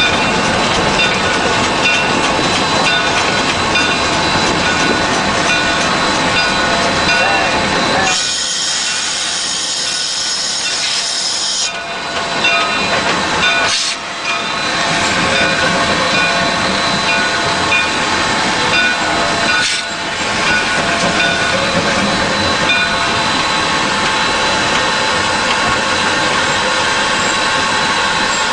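Shay geared steam locomotive running, heard from inside its cab: a steady, loud mechanical din from the engine and running gear. A high hiss of steam starts suddenly about a third of the way in and stops after about four seconds.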